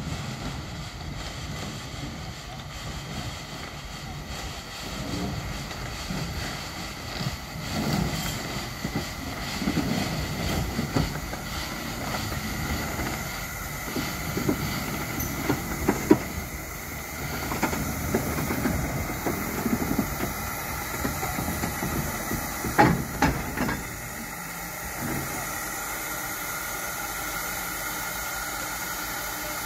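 W.G. Bagnall saddle tank steam locomotive moving slowly past, with a steady hiss of steam and a few sharp knocks in the middle stretch. Near the end only the steady steam hiss remains.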